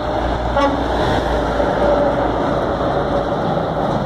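Volvo FH12 420 truck approaching with its engine running and tyre noise. A brief horn toot sounds about half a second in.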